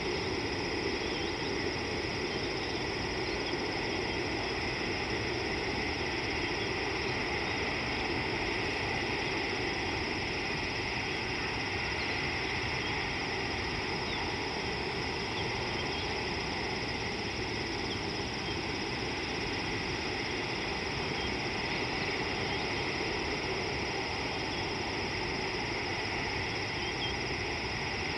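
Steady outdoor ambience picked up by an open microphone: a constant hiss and drone with a high, even insect-like band, and a few faint short chirps scattered through it.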